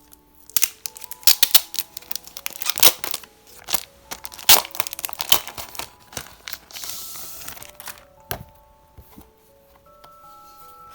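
Plastic packaging crinkling and crackling as it is handled, with a short tearing hiss about seven seconds in and one sharp click a second later, over soft background music.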